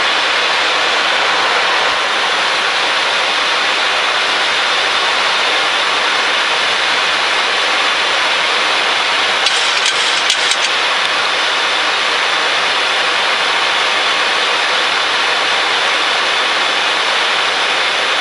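Steady rushing cabin noise in a Boeing 737-800 cockpit on final approach, from airflow and the engines. A few short clicks come about ten seconds in.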